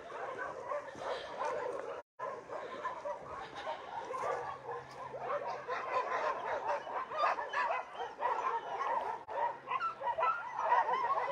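Many dogs barking together, their calls overlapping continuously. The sound cuts out briefly about two seconds in.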